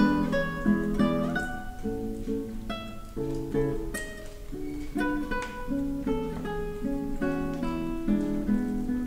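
Background music on acoustic guitar, with plucked and strummed notes.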